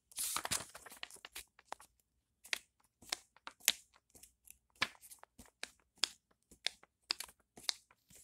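Page of a paperback graphic novel flipped back and forth by hand, the paper rustling with irregular sharp crackles and snaps.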